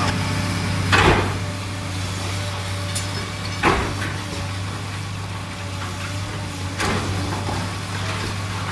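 Caterpillar M316C wheeled excavator's diesel engine running steadily as it demolishes an old tiled-roof house. Falling tile and masonry rubble gives three sharp crashes: about a second in, near four seconds and near seven seconds.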